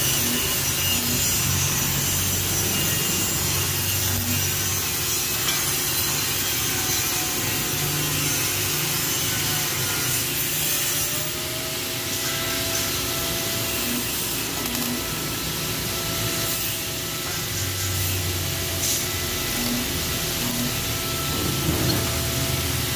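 MIG welding on a steel-tube frame: a continuous crackling hiss with a low hum.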